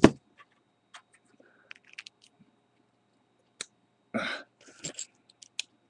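Small plastic clicks and taps from Beyblade parts being handled and fitted together by hand. The sharpest click comes right at the start and another about three and a half seconds in, with a short breath noise just after four seconds.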